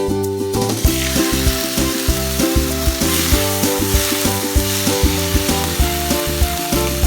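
Food sizzling in hot oil in a pan as it fries, starting about half a second in, with background music playing throughout.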